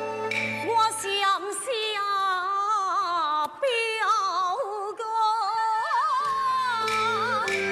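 A woman sings one line in Taiwanese opera (gezaixi) style, a high, wavering and ornamented melody. Traditional instrumental accompaniment plays before she begins and again as the line ends.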